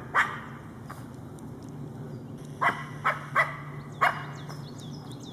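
Small dog barking in short, sharp barks: one just after the start, then four in quick succession from about two and a half to four seconds in.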